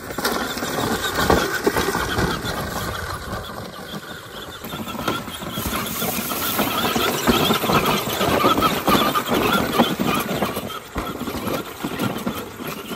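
Multi-wheel RC rock crawler driving, its electric motors and gears whining steadily under a continuous rough noise that grows denser after about five seconds.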